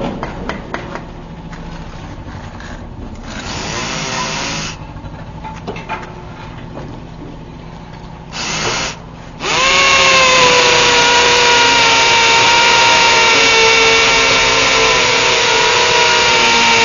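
Electric drill: a few clicks and two short bursts of motor noise, then about halfway through a motor starts with a quick rising whine and runs on loudly at a steady high pitch.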